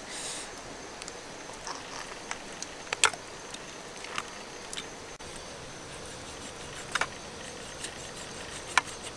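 A large knife cutting through a steamed duck in a metal tray, the blade knocking and scraping on the pan in scattered sharp clicks, the loudest about three seconds in and two more near the end, over a steady low hiss.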